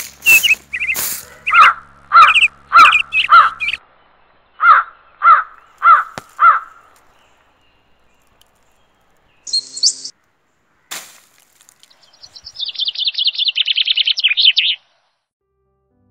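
Birds calling: a run of about nine calls roughly half a second apart, then after a pause a fast trill of chirps lasting about two seconds.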